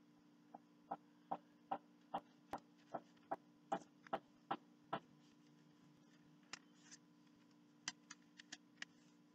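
A run of about a dozen sharp, evenly spaced clicks, a little over two a second, stopping about five seconds in; a few scattered clicks follow near the end. A low steady hum lies underneath.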